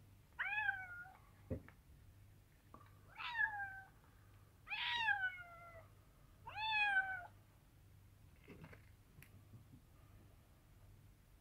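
A street cat meowing four times, each meow sliding down in pitch, the longest about a second long; after the fourth it falls quiet.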